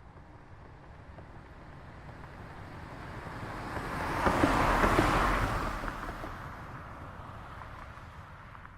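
A car passing by: tyre and engine noise swelling to a peak about five seconds in, then fading away.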